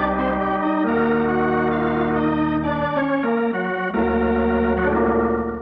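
Organ playing a short musical bridge of sustained chords that shift every second or so, then dies away at the end: a scene-change cue in an old radio drama.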